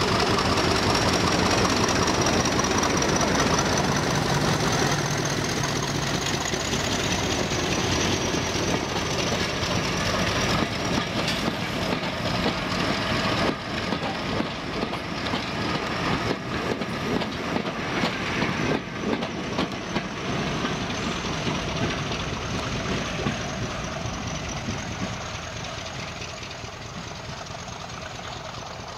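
British Rail Class 50 diesel locomotive's English Electric 16-cylinder engine running under power as it pulls away and passes, with a high whine that rises and then falls. The coaches then roll by with clattering wheels over the rail joints, and the sound fades away near the end.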